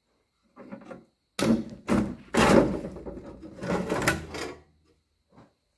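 Rusty steel tractor seat being worked loose and slid off its mount: about three seconds of metal scraping and clanking, then a small click near the end.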